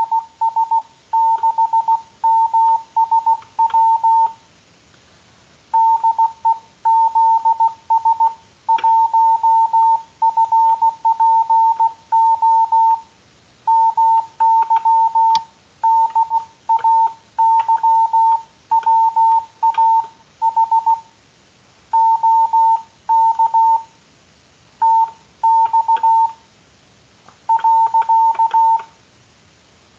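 Morse code (CW) as a single steady beep keyed into dits and dahs, sent in word groups with short pauses between them: a beginner's hand-sent reply.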